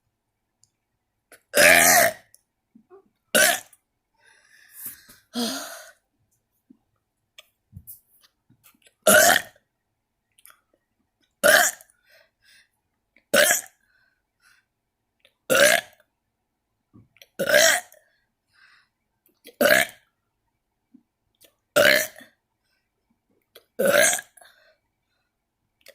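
A person burping over and over: about ten short, loud burps, roughly one every two seconds, with a softer burp around five seconds in.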